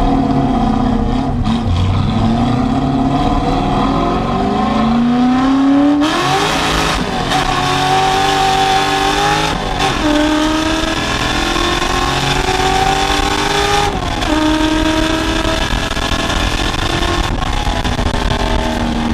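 A Ford F100's NASCAR-built V8 accelerates hard through a 2.5-inch dual exhaust with Black Widow Widow Maker 10 mufflers and a stainless X-pipe, heard from inside the cab. The engine note climbs in each gear and drops at three shifts, at about 6, 9½ and 14 seconds in, then holds fairly steady near the end.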